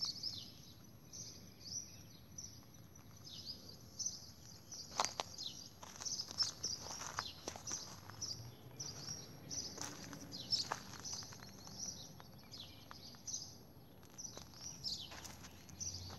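A flock of small birds chirping: many short, high chirps overlapping almost without pause, with scattered clicks from handling or footsteps.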